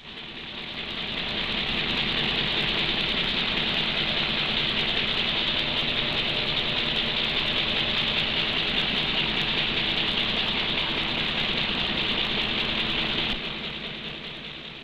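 Cartoon sound effect of a refrigeration plant running: a steady hiss over a faint low hum. It fades in over the first couple of seconds and fades out near the end.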